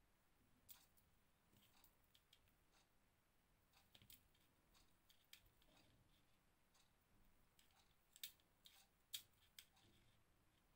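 Near silence, broken by faint, scattered small clicks and ticks from hands working beaded crochet lace. The two sharpest clicks come about eight and nine seconds in.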